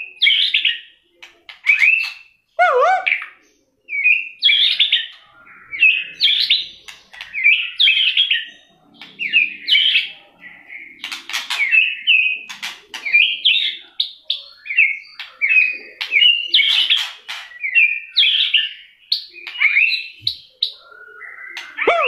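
White-rumped shama in full fighting song: a rapid, unbroken string of varied whistles and chatters, with sharp clicks between the phrases and a lower falling whistle about three seconds in.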